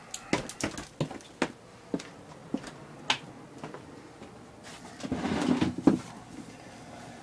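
Handling noise on a model-building bench: a string of light clicks and taps, then about a second of louder rustling and scraping a little past the middle, as plastic kit parts and the handheld camera are moved about.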